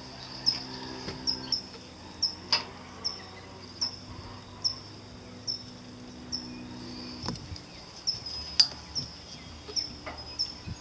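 A cricket chirping steadily, a little more than one short, high chirp a second. A faint low hum stops about seven seconds in, and two sharp clicks come through, the louder one near the end.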